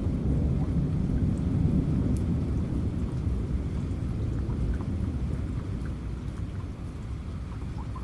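Rain falling with a low roll of thunder that is loudest a second or two in and slowly dies away, with scattered drips of raindrops over the rumble.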